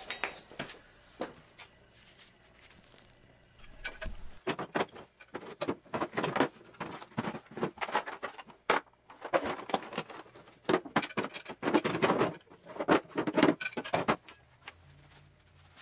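Irregular clinks, knocks and rustling as a small mower wheel is handled and fitted back on by hand. The sounds start about four seconds in and come in quick clusters, stopping just before the end.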